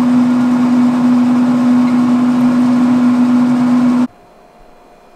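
Traeger pellet grill's fan running as the grill starts up: a steady hum over a hiss. It cuts off suddenly about four seconds in, leaving quiet room tone.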